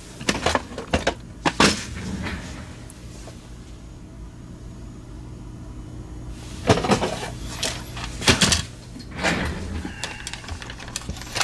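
Scattered light clicks and knocks from small parts being handled on a workbench, a few at the start and another cluster after a quiet gap of about four seconds, over a faint steady low hum.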